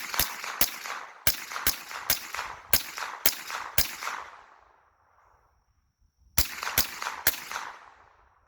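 Smith & Wesson M&P15-22 semi-automatic .22 rimfire rifle fired rapidly: about ten shots in four seconds, a pause of about two seconds, then three more shots, each with a short echoing tail.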